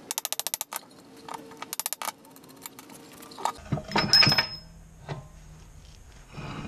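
An impact wrench hammering on the axle nut of a Nissan LEAF front hub in short rapid bursts. After a cut, loud metal clanks from handling the hub, knuckle and brake assembly, with a smaller knock near the end.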